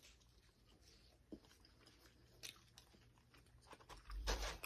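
Faint crunchy chewing of a crisp Burger King french fry close to the microphone, in small scattered clicks. Near the end comes a louder thump and scuff.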